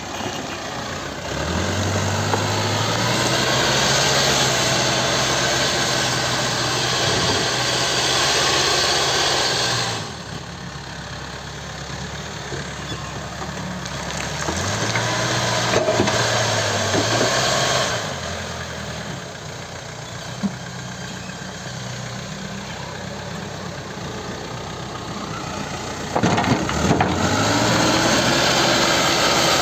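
CAT 434E backhoe loader's diesel engine revving up under hydraulic load and dropping back to idle, three times over. A few sharp knocks come through during the work.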